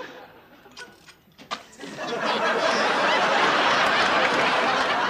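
Studio audience laughing, swelling up about two seconds in and carrying on. Before it, a few light knocks.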